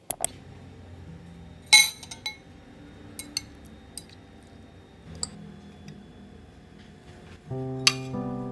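Glass and ceramic kitchenware clinking as a glass bowl of raw prawns and kitchen tongs on a white ceramic plate are handled: a sharp clink about two seconds in is the loudest, followed by several lighter clinks. Soft piano music comes in near the end.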